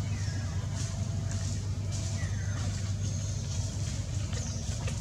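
A steady low drone like a running engine, with two faint high calls that slide downward in pitch, one near the start and one about halfway through.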